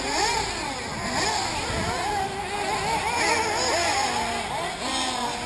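Several 1/8-scale nitro RC buggies' small two-stroke glow engines whining together, their pitches rising and falling as the cars accelerate and brake around the track.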